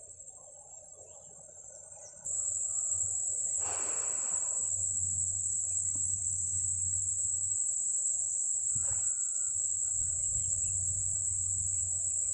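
Insects in a steady high-pitched shrilling chorus, which gets abruptly louder about two seconds in. A brief rustling sound is heard about four seconds in.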